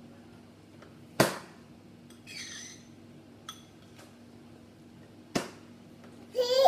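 Two sharp knocks about four seconds apart, the first the louder, with a baby making a short sound between them; near the end the baby breaks into a laugh.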